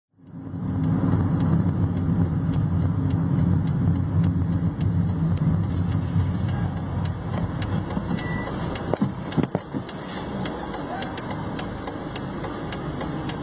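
Vehicle engine and road noise heard from inside a car's cabin: a heavy low rumble for the first nine seconds or so. A few knocks come around nine to ten seconds in, after which it settles to a quieter, steady hum.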